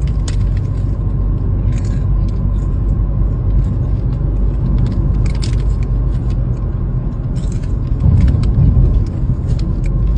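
Steady low road rumble of a moving car heard from inside the cabin. Scattered crinkles and crunches come from a snack-chip bag and chips being handled.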